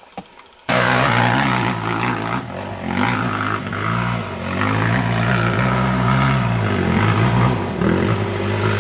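Dirt bike engine running hard under throttle, its pitch wavering slightly up and down as it climbs. It starts abruptly a little under a second in.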